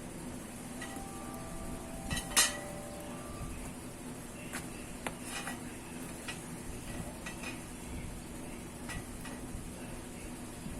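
Ceramic pieces clinking and knocking together in a few scattered taps, with one louder clink about two and a half seconds in that rings briefly, over a faint steady hum.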